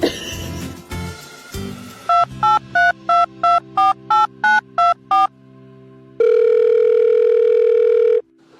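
Touch-tone telephone keypad beeps: about ten dialled digits in quick succession, each a short two-note tone. A steady tone follows for about two seconds and cuts off suddenly.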